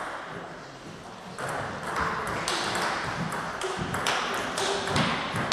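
Table tennis rally: the ball clicking off the rackets and bouncing on the table in a quick back-and-forth rhythm of about two hits a second, starting about a second and a half in after the serve.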